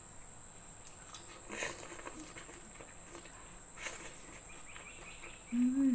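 Quiet eating sounds from a person at a meal: two soft clicks, about a second and a half and four seconds in, and a brief hummed "mm" near the end, over a steady high-pitched whine.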